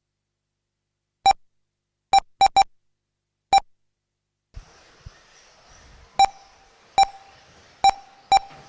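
Nine short electronic beeps of one identical pitch from an RC race timing system, at uneven intervals with three in quick succession about two seconds in, typical of car transponders registering as they cross the timing loop. A faint hiss comes in about halfway through.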